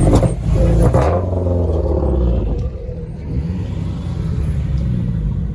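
Car engine revving up in the first second, then settling into a steady low drone.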